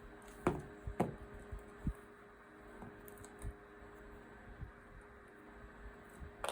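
A few light knocks and taps from hands working a cotton loop through the loops on a potholder weaving loom, two sharper ones in the first second, over a faint steady hum.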